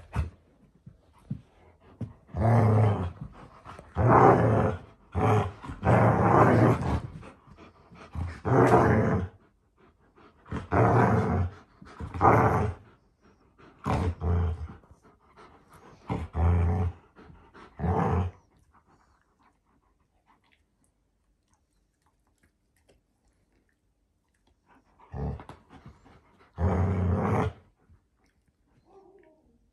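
Dogs play-growling during a tug of war, an Alaskan malamute and a golden retriever puppy, in a string of growls about a second long each. The growls stop for several seconds, then two more come near the end.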